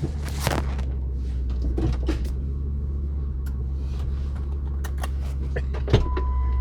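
1999 Ford V10 truck engine running steadily as a low drone heard inside the cab, with scattered clicks and knocks. A sharper knock comes about six seconds in, and a steady tone starts near the end.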